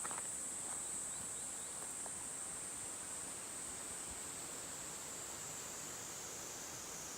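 Summer insect chorus: a steady, high-pitched shrill drone that sinks very slightly in pitch, over the even rush of a valley stream. There is a faint footstep right at the start.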